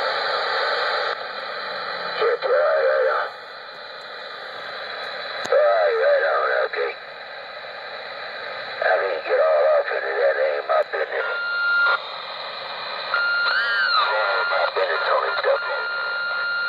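Galaxy DX 95T CB radio on channel 6 playing static hiss through its speaker, broken by a few short, garbled, warbling transmissions. From about eleven seconds in, a steady high whistle holds over the hiss, with swooping tones rising and falling across it.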